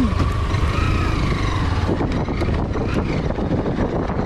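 An engine running steadily: a low rumble with a faint whine that rises slightly in pitch over the first second or so.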